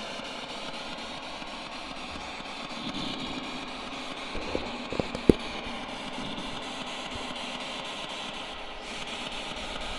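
Steady hiss with no clear source, and a short cluster of sharp clicks or knocks about halfway through, one much louder than the rest.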